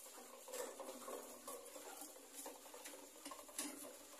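Faint rattling of a child's plastic tricycle rolling over a tiled floor, with irregular sharp clicks from the wheels and frame.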